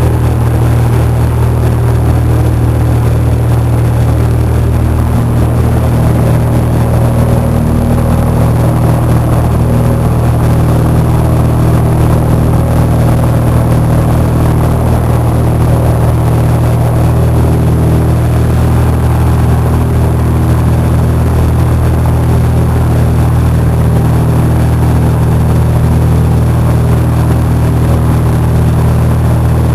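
Cessna 172's piston engine and propeller running with a steady, unchanging drone.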